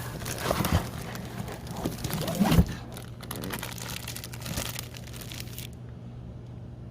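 Packaging being handled and opened: crinkling and rustling with knocks, busiest in the first three seconds with one louder knock partway through, then quieter.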